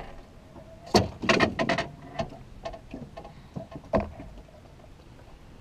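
Sharp knocks and clatter of gear and people moving on a fishing boat: a loud knock about a second in, a short run of clattering right after, and another knock near four seconds in.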